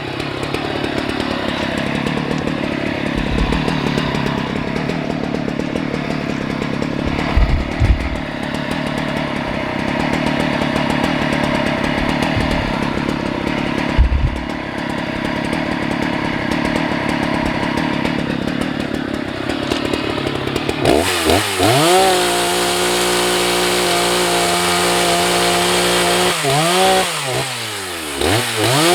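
Chainsaw running steadily under load while cutting firewood, with a few dull thuds. About two-thirds of the way in, the sound switches to a clear-pitched engine note that dips and climbs back a few times, as the engine drops off and is revved up again.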